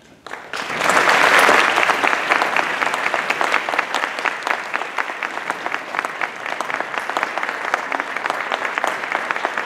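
Audience applauding. It breaks out suddenly just after the start, is at its loudest over the first couple of seconds, and then settles into steady clapping.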